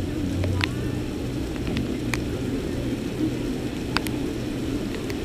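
Heavy rain falling steadily, with a few sharp taps of drops striking close to the microphone.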